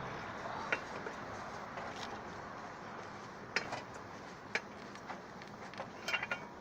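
A few sharp metallic clicks and ticks, irregularly spaced, as the last lug nut is worked off its wheel stud with a lug wrench, over a steady background hiss.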